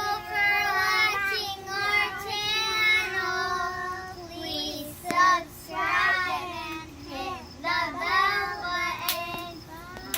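A child singing in high, drawn-out phrases with no clear words.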